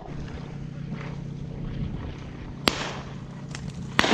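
Two shotgun shots from farther off, the first about two and a half seconds in and the second near the end, much quieter than a shot from the shooter's own gun, over a steady low hum.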